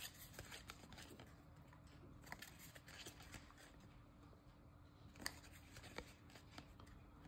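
Near silence, with faint scattered ticks and rustles of trading cards being handled and flipped through by hand, the sharpest a little past five seconds in, over a faint steady hum.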